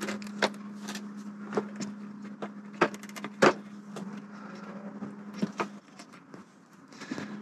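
Scattered light clicks and taps as hands pick old rubber gaskets out of a plastic inlet manifold, the sharpest click about three and a half seconds in, over a steady low hum.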